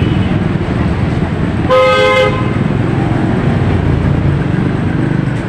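A vehicle horn honks once, for about half a second, about two seconds in, over the steady noise of passing street traffic.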